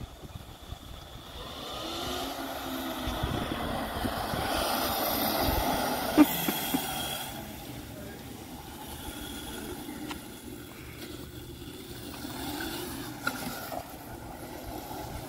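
Homemade electric go-kart driven by an alternator converted into a motor, whining as it accelerates past, the whine rising in pitch and loudest around the middle. A sharp click about six seconds in; another rising whine near the end as it speeds up again.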